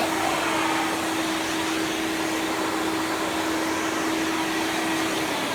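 Delphin 802WD twin-motor industrial wet-and-dry vacuum running with a steady hum and rush of air. Near the end its pitch starts to drop as the motor winds down.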